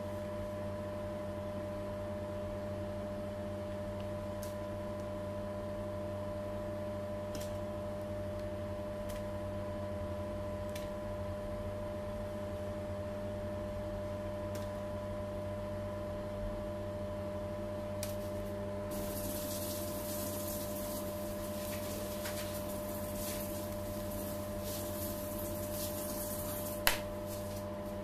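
Steady electrical hum with a few faint clicks. In the last third a rustling, scraping hiss rises over it, and a single sharp click comes near the end.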